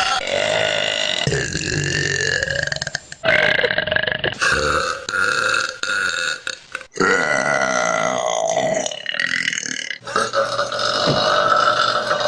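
Women burping loudly: a string of about six long, drawn-out burps in quick succession, with abrupt cuts from one to the next.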